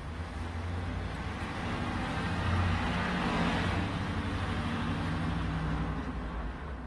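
A road vehicle passing by: a rising then fading rush of engine and tyre noise with a low rumble, loudest about three seconds in.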